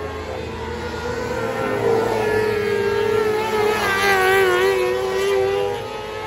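Several 600cc mini sprint engines running at high revs. Their pitches waver and rise and fall against each other, and the sound is loudest about four to five seconds in.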